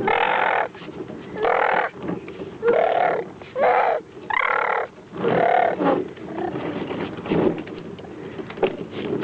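A toddler making loud, short vocal shouts, about six in a row over the first six seconds, then quieter noises with a single click near the end.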